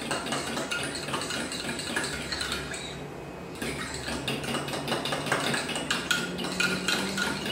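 Egg and milk being beaten by hand in a white ceramic mug: a utensil clinks rapidly against the mug's sides, with a short pause about three seconds in.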